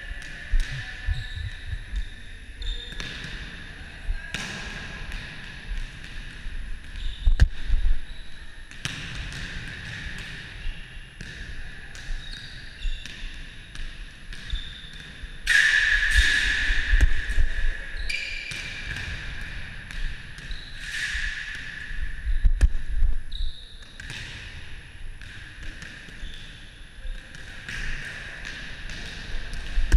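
Volleyball being played in a gym: irregular sharp slaps of hands on the ball and the ball hitting the floor, ringing in the hall.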